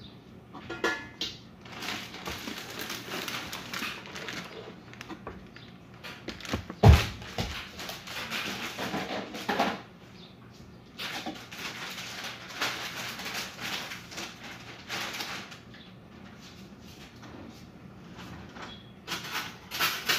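Someone getting a bowl of cereal in a kitchen: stretches of rattling and rustling with scattered knocks of bowls, cupboards and the box, the loudest a sharp knock about seven seconds in.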